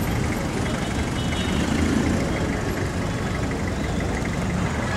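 Steady low rumble of street traffic, with an engine running.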